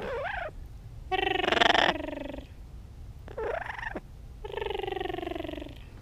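Yellow-naped Amazon parrot calling four times: a short gliding call at the start, a loud call about a second in, a brief rising-and-falling call midway, and a longer, slightly falling call near the end.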